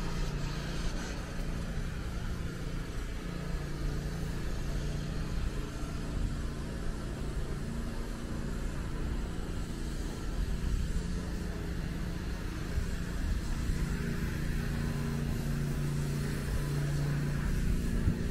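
Steady low outdoor rumble with a faint low hum that comes and goes.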